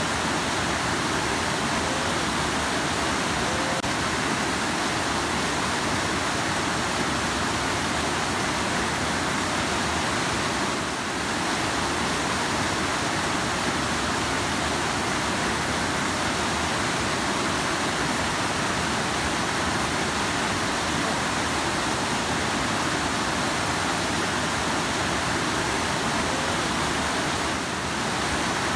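Rushing river water: a steady, dense rush of water noise, dipping briefly twice.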